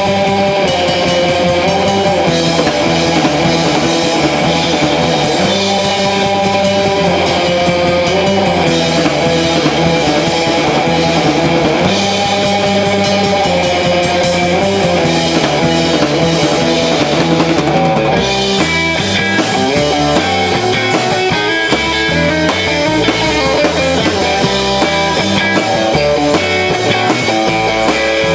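Live instrumental rock played by a trio on electric guitars and a drum kit through amplifiers, with no singing. About two-thirds of the way through, the guitar part changes to choppier, shorter notes.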